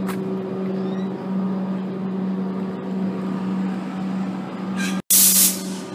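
Steady electric hum of stopped Comeng and Siemens suburban electric trains standing at the platform. About five seconds in comes a short, loud hiss of air, the brakes releasing just before the trains depart.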